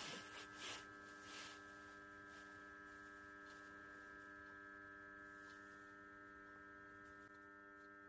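Near silence: a faint steady electrical hum made of several fixed tones, with a few soft taps in the first second and a half.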